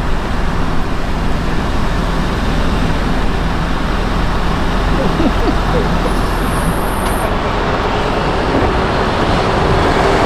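A motor vehicle's engine running steadily, a dense, even rumble and rush of noise.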